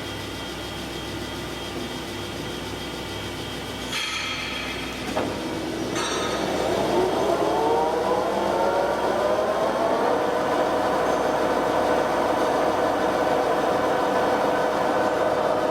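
TOS SUI 40 lathe running with a steady gearbox hum. A few clicks come about four to six seconds in, then the gear whine climbs over several seconds and holds steady at a higher pitch.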